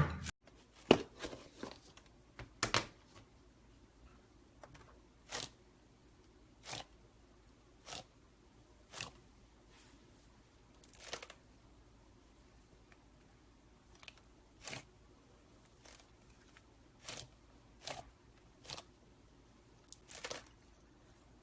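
Slime being handled, giving short sharp pops or clicks about once a second, with a quicker cluster of them in the first few seconds.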